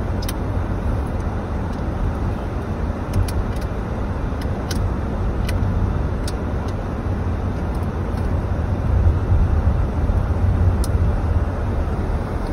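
Steady rumble of a car driving on a wet, slushy road, heard inside the cabin: low tyre and engine noise, with faint scattered ticks.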